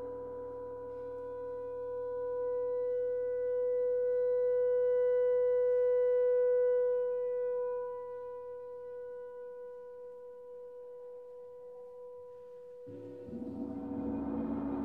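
Orchestral music: one long held note, steady in pitch, swells to its loudest a few seconds in and then fades over a faint low background. Near the end a fuller, lower chord comes in.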